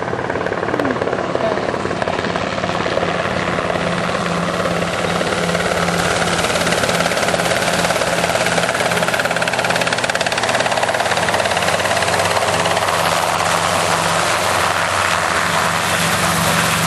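Small helicopter running close by: a steady, loud rotor beat over engine and blade noise.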